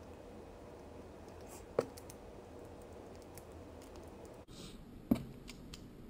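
Small clicks and taps of a plastic car key fob shell and its metal key blade being handled and pressed together, with two sharper clicks, one about two seconds in and one near the end.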